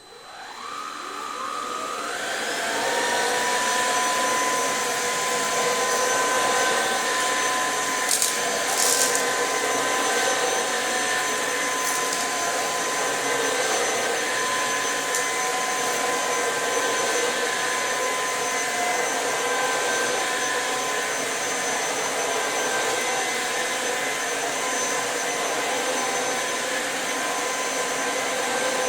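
Electrolux Pure F9 Allergy stick vacuum switched on at full power: its motor whine rises over the first two to three seconds, then runs steady while vacuuming. A few brief clicks come through about eight to twelve seconds in.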